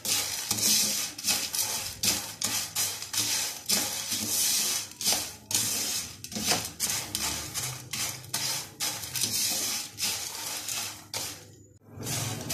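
Wooden spatula stirring and scraping crushed instant noodles around a nonstick frying pan as they toast in a little oil, in quick repeated strokes with the dry noodle pieces rustling against the pan. The strokes stop briefly near the end.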